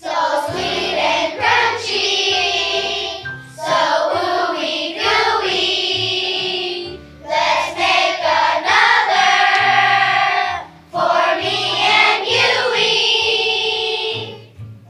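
Children's choir singing a song in four phrases with short breaths between them, over a low instrumental accompaniment.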